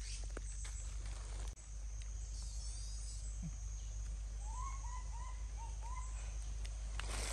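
Outdoor ambience: a steady high-pitched insect drone over a low rumble, with a run of five short chirps about halfway through. There is a brief drop-out about a second and a half in.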